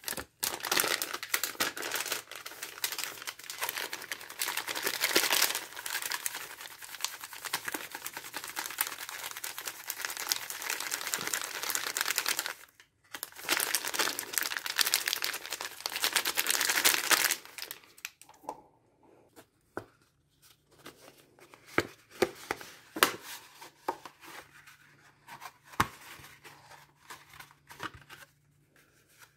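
Plastic MRE packaging, the flameless ration heater bag with the entrée pouch, crinkling and rustling as it is handled and folded for about seventeen seconds, with a short pause near the middle. After that only scattered light clicks.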